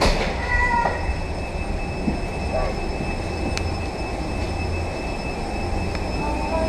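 Steady low rumble and hum of machinery inside an enclosed airport jet bridge, with faint steady high-pitched whine tones over it and a single light tick about three and a half seconds in.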